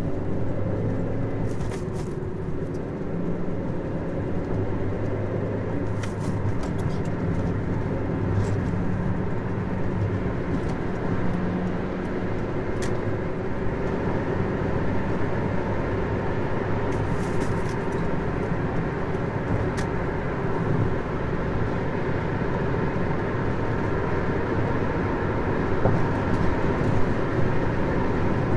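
Car engine and tyre noise heard from inside the cabin while driving on a city street: a steady low rumble and hum. The engine pitch rises over the first few seconds as the car gets moving, and a few faint clicks come through now and then.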